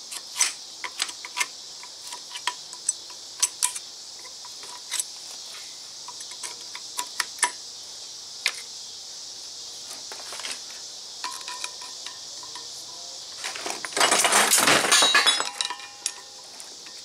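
Screwdriver tip picking and prying at the steel inside lock rings of a U-joint held in a vise: a run of light metallic clicks and clinks, then a loud metal clatter about two seconds long near the end.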